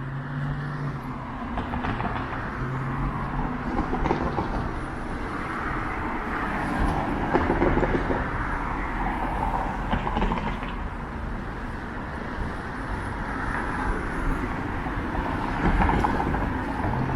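Downtown street noise: traffic running steadily, with a constant low rumble of wind on the microphone.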